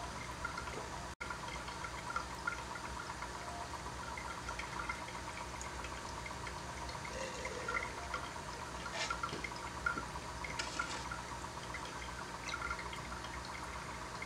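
Air bubbling from an aquarium airline in a small tank: a faint steady trickle with many small bubble pops, over a steady low hum.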